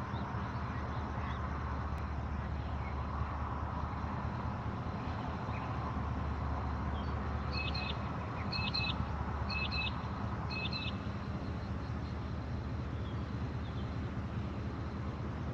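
Steady low hum of idling diesel freight locomotives, with a bird calling four times, about a second apart, around the middle.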